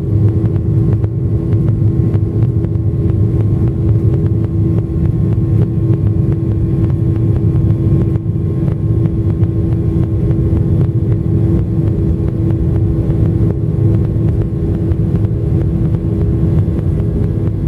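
Boeing 737-800's CFM56-7B turbofan engines at takeoff thrust, heard inside the cabin during the takeoff roll: a steady loud rumble with a steady fan hum over it as the jet accelerates down the runway.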